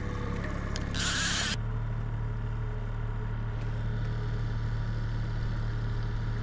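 Small outboard kicker motor running steadily while trolling, a low even drone. A short rush of noise breaks in about a second in.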